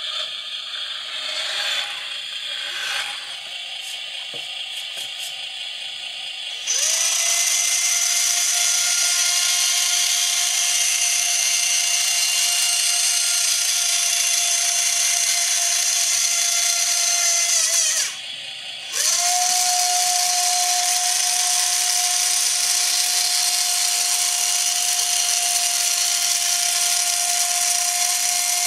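Small electric motors of a Carson Linde H40D RC forklift. It starts with a few light mechanical clicks and whirs. About seven seconds in, a loud, steady motor whine starts, rising quickly into pitch. It runs for about eleven seconds, stops for a second, then starts again.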